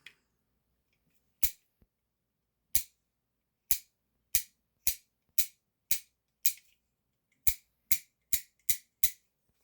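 Sharp metallic clicks of a Heritage Rough Rider .22 single-action revolver's hammer and action being worked on an empty gun, about a dozen clicks, spaced roughly a second apart at first and coming faster near the end. The revolver has a weak mainspring that the owner blames for misfires.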